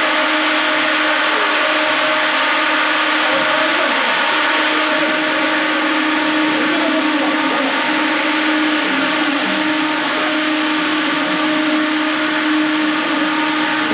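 A motor running steadily and loudly: a constant hum with a rushing hiss, unchanging throughout.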